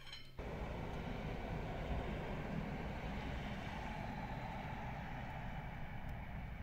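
Steady outdoor background noise, a low rumble with a hiss over it, that starts abruptly shortly after the beginning.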